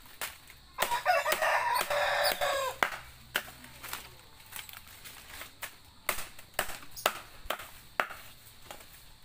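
A rooster crows once, a call of about two seconds starting about a second in, the loudest sound here. Through the rest come short sharp rustles and snaps of palm fronds being handled and woven.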